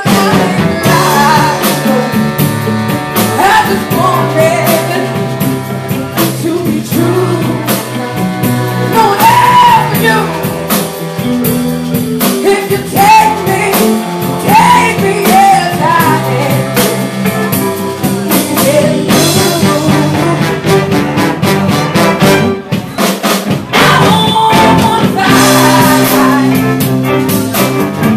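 Live soul and R&B band playing: a woman sings lead over a horn section of saxophone and trombone, backed by electric guitar, drum kit and keyboard, with a steady beat.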